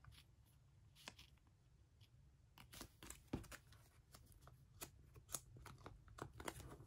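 Faint rustles and small clicks of a photocard being handled and slipped into a plastic binder sleeve, over a low steady room hum.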